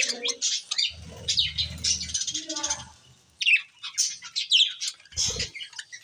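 Flock of budgerigars chattering, many quick overlapping chirps and warbles. There is a low rumble about a second in and a short low thump past the five-second mark.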